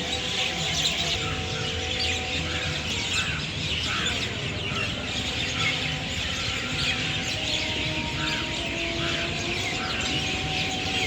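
A large flock of birds chirping and calling together in a dense, continuous chorus, with short notes repeated over the constant twittering.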